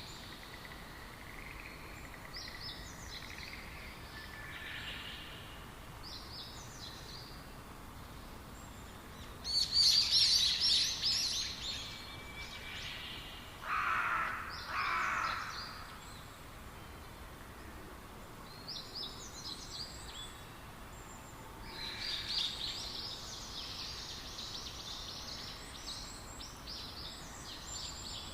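Small birds chirping and singing in short high phrases over a steady outdoor hiss. The loudest burst of song comes about ten seconds in, and a longer run of chirps comes near the end.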